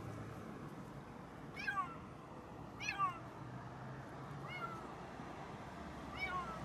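A small kitten meowing, trapped inside a car's engine compartment. It gives four short, high meows about a second and a half apart, each falling in pitch.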